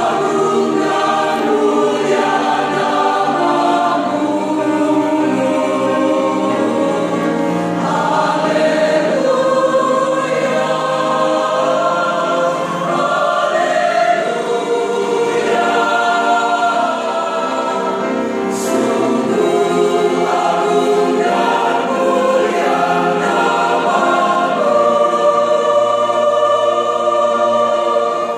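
Mixed-voice church choir singing a hymn in harmony, the sustained chords running on without a break.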